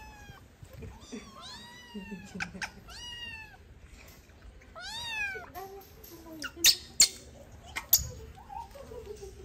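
Kittens meowing: about five short mews that rise and fall in pitch over the first half. Later, three sharp knocks or clicks, the loudest sounds, followed by a fainter falling call near the end.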